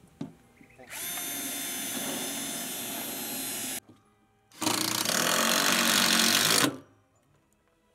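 Cordless drill-driver driving screws through a dome's base ring into the deck: two runs of the motor, about three seconds and then about two seconds, the second louder, with a short pause between.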